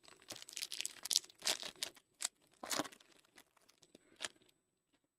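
A foil trading-card pack being torn open and its wrapper crinkled, in quick rustling bursts over the first three seconds, then a few lighter rustles as the cards are handled.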